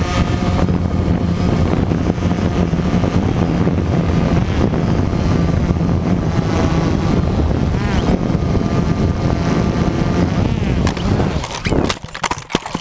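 DJI Phantom 2 quadcopter's electric motors and propellers buzzing steadily, heard from the GoPro mounted on the drone itself. The pitch wavers about eleven seconds in, then a rapid series of clattering knocks as the drone crashes to the ground and the propeller noise cuts out.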